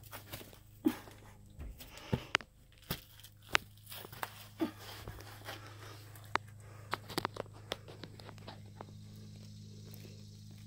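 Irregular crunches, crinkles and knocks of a person crawling over plastic sheeting in a crawl space, thickest in the first five seconds and sparser after, over a steady low hum.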